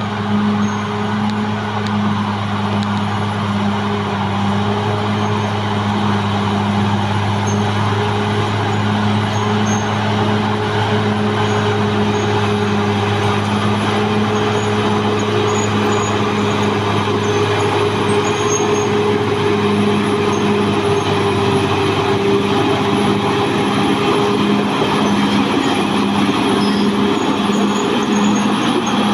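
Caterpillar D6R XL bulldozer's diesel engine running steadily with a deep hum, working the machine. About three-quarters of the way through, the deepest hum drops away and a regular pulsing sets in.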